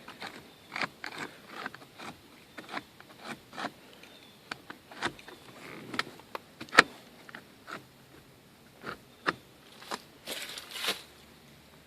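Irregular clicks and light knocks from a car seat's clip-on chrome release lever and the seat being handled, the sharpest click about seven seconds in, with a short rustle near the end.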